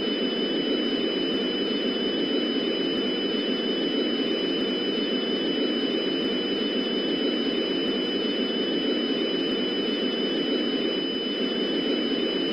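Steady drone of static-like noise under a mock emergency alert broadcast: an even, unchanging hiss, heaviest in the low-middle range, with two faint high-pitched whines held over it.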